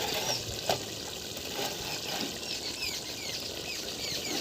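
Small birds chirping: many short, high chirps, each falling in pitch, repeating throughout, with a single sharp click under a second in.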